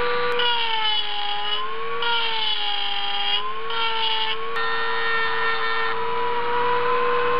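Kawasaki 1.0-amp rotary tool whining steadily as its grinding bit smooths a port in a Mazda rotary engine's cast-iron center iron. Its pitch sags about half a second in as the bit bears into the metal, comes back up around three and a half seconds, dips briefly once more, then holds steady.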